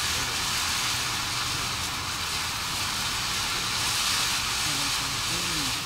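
Consumer ground-fountain firework spraying sparks, a steady even hiss with no bangs or crackle bursts.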